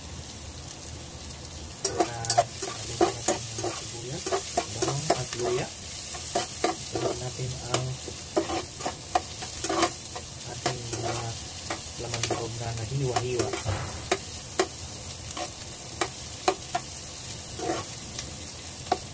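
Garlic, onion and ginger sizzling in hot oil in a pan while being sautéed. A utensil stirs them, scraping and knocking against the pan many times from about two seconds in.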